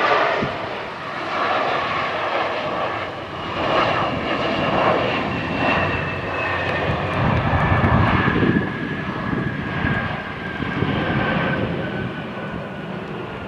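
Embraer regional jet landing: its twin turbofan engines whine and rush as the wheels touch down and it rolls out along the runway. The noise swells to its loudest about eight seconds in, then eases as the engine whine slowly falls in pitch.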